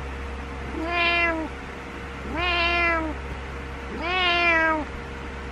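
Domestic cat meowing close up, three drawn-out meows about a second and a half apart, each rising at the start and dropping off at the end. These are its persistent wake-up meows, made to get its owner out of bed.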